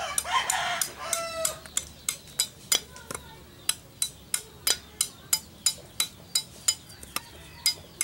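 A knife shaving the husk off a young coconut in quick short strokes, a sharp scrape about three times a second. A rooster crows over the first two seconds.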